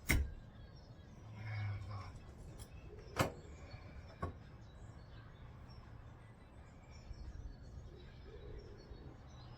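Three sharp knocks: one at the very start, one about three seconds in and one a second after that. Faint bird chirps over quiet outdoor background noise.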